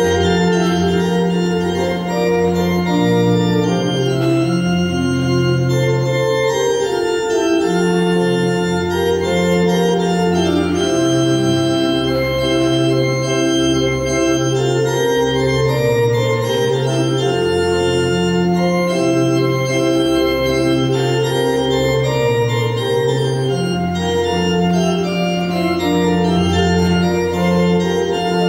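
Organ playing slow, sustained chords over a moving bass line, in a reverberant church.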